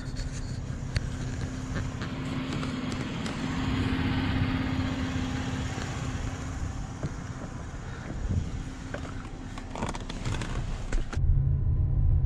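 A vehicle's engine running, with tyre and road noise and a steady hum. About 11 seconds in, it changes abruptly to the louder, steadier low rumble of driving heard from inside the cab.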